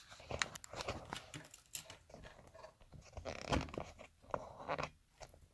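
Foam and plastic airframe parts crackling and creaking as hands fit and press the top half of a small foam RC airplane's fuselage into place. The crackles and clicks are irregular, with one louder knock about three and a half seconds in.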